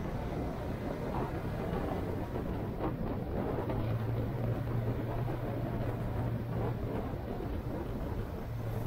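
A vehicle engine runs with a steady low hum while the vehicle is under way, over a constant rush of road and wind noise.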